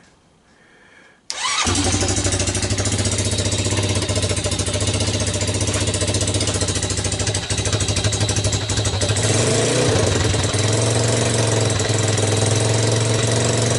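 ATV engine starting on choke, catching about a second in and then running at a steady idle, its note shifting slightly around nine seconds in.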